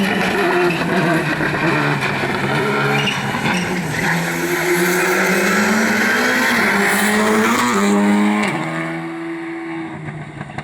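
A rally car driven hard on a stage, its engine revving up and dropping in pitch with gear changes, fading away over the last couple of seconds.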